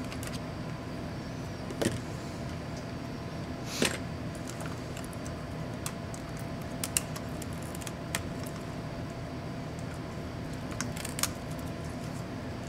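Laptop parts being handled by hand: scattered sharp clicks and taps of plastic and metal as the motherboard and its flex cables are lifted and unclipped, the loudest about four seconds in, over a steady background hum.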